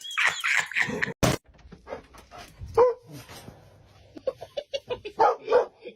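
A dog barking in short bursts, with a quick run of barks near the end.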